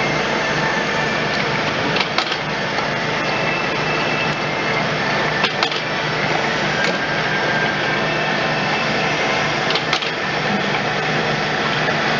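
Traub A25 cam-type automatic lathe running steadily as it machines brass bar stock. Pairs of sharp clicks come through the machine noise three times, a few seconds apart.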